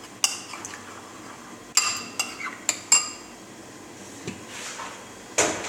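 Metal spoon clinking and scraping against a ceramic bowl while tomato paste is stirred and dissolved in a little water. A cluster of sharp, ringing clinks comes about two to three seconds in, and a heavier scrape comes near the end.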